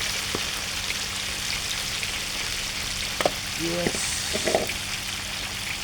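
Pieces of fish dusted in corn flour frying in hot oil: a steady sizzle, with a few sharp clicks.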